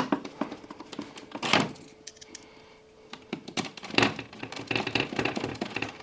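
Small plastic clicks and taps of screws and a hand screwdriver being worked into the plastic housing of a washing machine's control circuit board, with a heavier knock about a second and a half in and a run of quick ticks in the second half.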